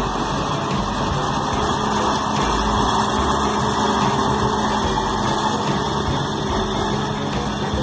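Belarus MTZ 1025 tractor's four-cylinder diesel engine running steadily as the tractor drives while working a mounted fertiliser spreader.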